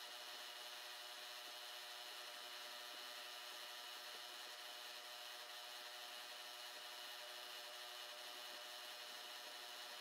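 Milling machine spindle running steadily with a 1.5 mm four-flute carbide end mill cutting a 1 mm deep pocket in metal, a steady hiss with a faint hum underneath.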